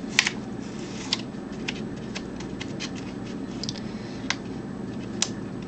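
Hands handling the pages of an old magazine: scattered light clicks, crackles and paper rustles, a few sharper ticks among them, over a faint steady hum.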